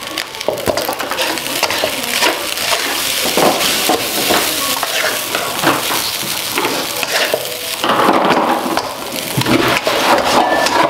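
Fried rice sizzling in a hot wok while it is stirred and tossed with a metal spatula, which scrapes and clinks against the pan again and again.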